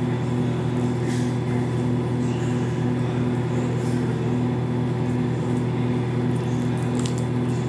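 Steady mechanical hum from a running appliance, with a faint regular pulsing in it.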